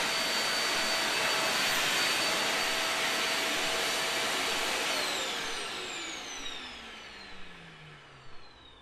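Vacuum cleaner motor running with a steady rushing hiss and whine. About five seconds in it is switched off, and the whine falls in pitch and fades as the motor spins down.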